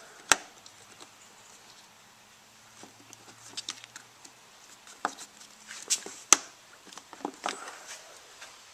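Irregular clicks, taps and knocks of hands working on parts, with two sharp clicks standing out: one near the start and one about six seconds in.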